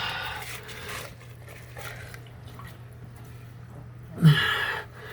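Water trickling and dripping in an opened cast-iron sewer house trap as the drain system is flushed, over a steady low hum. A short vocal sound about four seconds in is the loudest moment.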